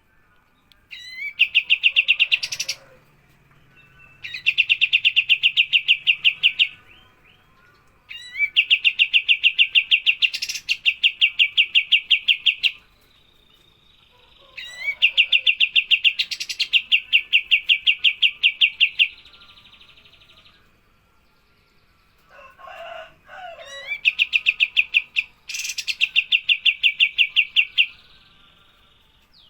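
Songbird song from a masteran recording: five loud, fast, evenly pulsed trills of two to four seconds each with pauses between them, most opening with a quick upward-sweeping note. A faint steady high whistle runs underneath, and a brief lower chattering call comes just before the last trill.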